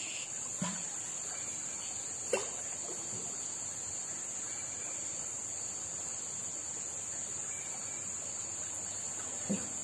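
Steady high-pitched drone of insects, with one short knock about two and a half seconds in.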